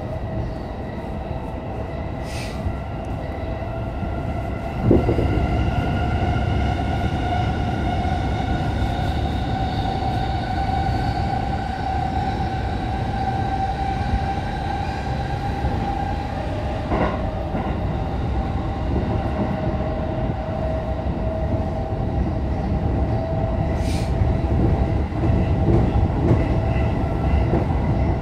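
Electric commuter train running, heard from inside the passenger car: a steady rumble of wheels on track with a whining motor tone that slowly rises in pitch and then eases off. Loudness jumps suddenly about five seconds in, and a few sharp clicks come through.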